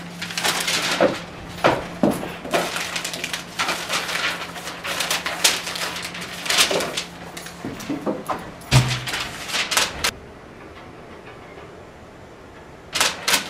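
Sheets of paper rustling and crackling in quick, irregular handling as they are riffled and flipped through, with one loud thump a little before nine seconds. Two quick sharp sounds come near the end.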